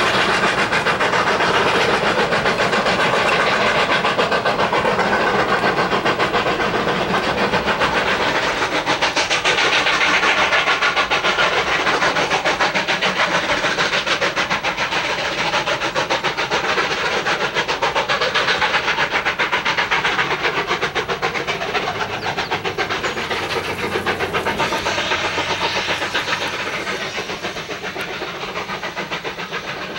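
Two narrow-gauge 2-8-2 steam locomotives, K-27 #463 and K-36 #488, working hard together up a 4% grade, their exhaust beats running fast and overlapping. The sound fades over the last several seconds as the train pulls away.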